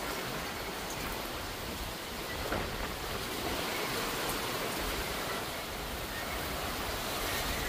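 Steady rain falling in a thunderstorm, an even hiss with a few faint ticks of drops.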